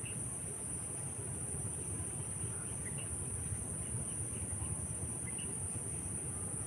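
Insects chirring in a steady, high-pitched drone, with a few faint bird chirps and a low rumble underneath.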